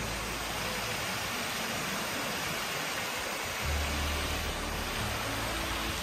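Steady rush of water from a waterfall and its stream. A brief low rumble comes in a little past halfway.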